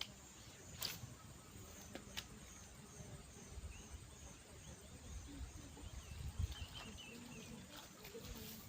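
Faint outdoor ambience of small birds chirping and insects calling, with a row of short high chirps in the first half and a couple of sharp clicks. There is low rumbling in the middle, from wind or handling.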